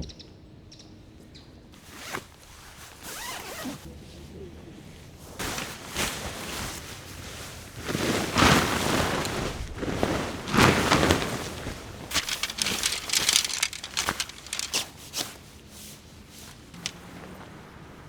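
A sharp knock at the start, then a tent zipper being pulled and nylon tent fabric rustling and swishing while the tent is handled, in several separate bursts with a quick run of short scratchy pulls near the end.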